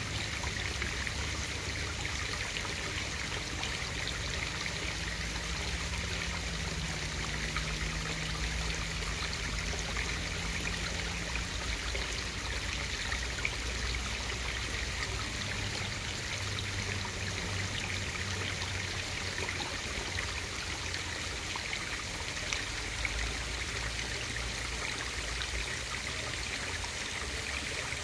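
Steady rushing hiss of pond water heard through a submerged camera, with a low rumble underneath and faint scattered ticks.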